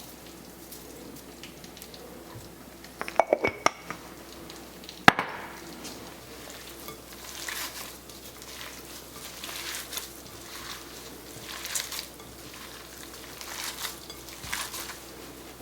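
Cooking in a pan: a quick run of clinks about three seconds in and one sharp knock a couple of seconds later, then food sizzling and being stirred in the pan, swelling and easing irregularly.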